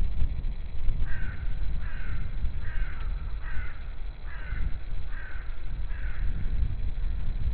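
A crow cawing seven times in an even series, a little under a second apart, over a low steady rumble.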